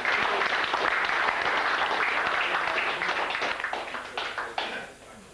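Audience applauding a billiards shot: dense clapping that thins to a few scattered claps about four seconds in and dies away.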